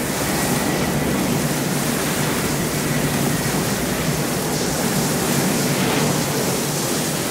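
Dry bulk powder blasting out of a pneumatic silo tanker trailer under a loading gantry: a loud, steady rush of escaping air and powder with no let-up.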